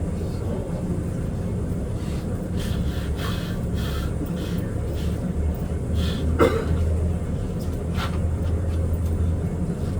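Steady low rumble of background noise, with a brief short sound about six and a half seconds in.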